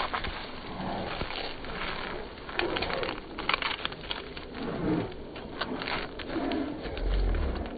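Two young German Shepherds play-fighting: claws scrabbling and pattering on paving stones as they tussle, with a few short low play growls. A low rumble near the end.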